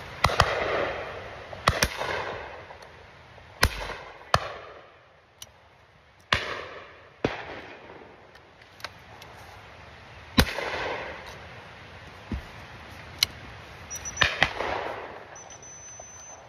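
Shotgun fire: a series of sharp reports, a dozen or so, some in quick pairs, the loudest each followed by a rolling echo that dies away over about a second. Fainter cracks fall between them.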